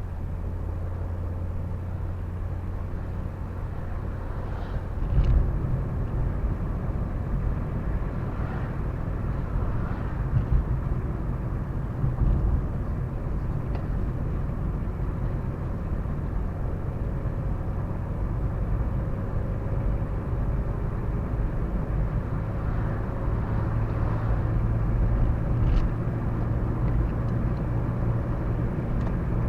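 Car driving along a road, heard from inside with the windows down: steady low engine and tyre rumble with rushing air, and a few brief thumps about 5, 10 and 12 seconds in.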